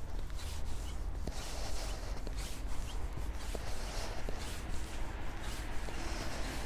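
Footsteps of a person walking on a paved sidewalk, faint ticks a little under a second apart, over a steady low rumble.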